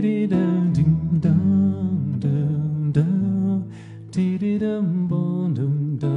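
A man humming a wordless melody into the microphone over his own nylon-string guitar accompaniment, in a Brazilian song.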